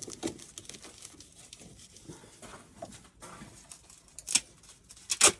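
Small scraping and rustling handling noises as refractory cement is worked into the lining of a gas forge, with two sharp knocks, about four and five seconds in.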